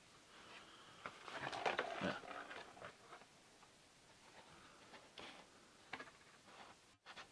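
Quiet handling noise as a smartphone and a cardboard package leaflet are moved about by hand: a spell of rustling and scraping a second or two in, then a few light taps.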